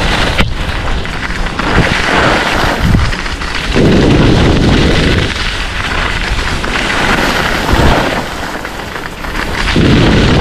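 Wind buffeting a helmet camera's microphone over skis scraping across groomed snow during a downhill run. It is a loud rushing rumble that swells and eases every couple of seconds.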